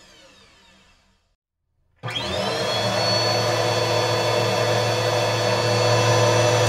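Cordless stick vacuum cleaner's motor winding down with a falling whine and stopping. After about a second of silence it switches back on, its whine rising quickly and then running steadily.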